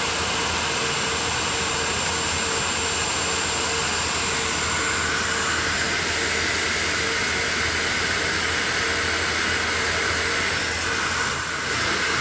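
Hebo CNC drilling machine running, a steady machine whine and hum from its spindle motors. A higher tone steps up slightly about halfway through, and the sound dips briefly near the end.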